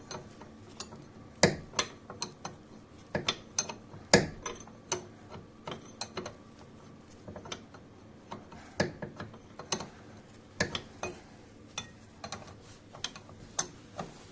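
Irregular sharp metallic clicks and knocks of a wrench and hand tools being worked on bolts under a car, a couple of strikes a second at most, unevenly spaced.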